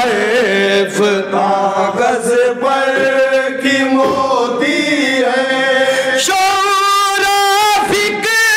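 Men's voices singing a manqabat, an Urdu devotional poem, with no instruments. A lead voice carries the melody with wavering, ornamented pitch, and about six seconds in the group of reciters joins in chorus and the singing grows fuller.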